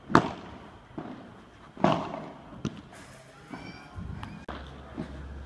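Padel rally: sharp pops of the ball being struck by rackets and bouncing on the court, about one a second, the loudest right at the start.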